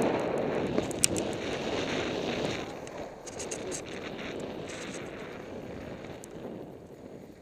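Skis sliding and scraping over snow, with wind buffeting the microphone; the rush is loudest at the start and slowly fades. A few short sharp clicks come through, one about a second in and several a few seconds later.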